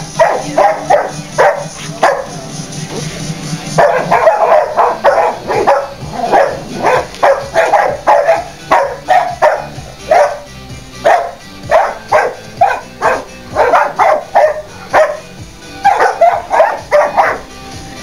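English springer spaniels barking: short, sharp barks repeated over and over, often about two a second, with background music underneath.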